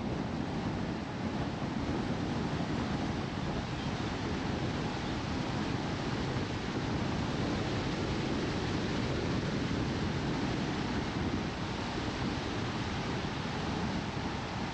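Steady rushing noise from a car driving at road speed: tyre and road rumble mixed with wind blowing over the microphone, with no engine note standing out.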